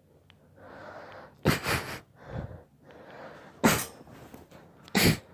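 A person sneezing in a fit: audible in-breaths, then three loud sneezes about a second and a half to two seconds apart, with a smaller sneeze just after the first.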